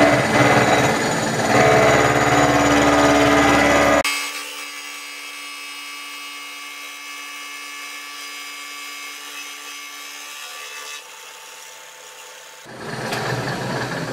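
Turret milling machine's cutter machining the edge of a metal plate clamped upright in the vise. A loud cutting noise with a steady whine lasts about four seconds, then drops abruptly to a quieter steady whine. The louder cutting returns near the end.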